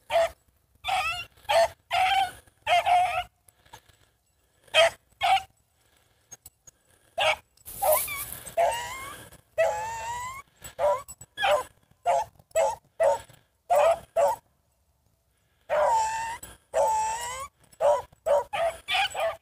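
Rabbit-hunting hounds giving voice on a rabbit's trail: an irregular run of barks and longer drawn-out bawls, some falling in pitch, with short lulls.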